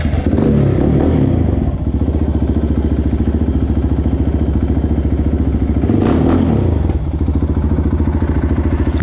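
Motorcycle engine running at idle with a fast, even beat, revved up briefly twice: about a second in and about six seconds in.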